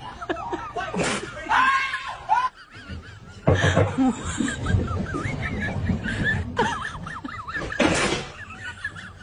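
People laughing and snickering, with wavering, shrieky voices and a few loud sudden outbursts; the laughter breaks off briefly a little over two seconds in and starts again.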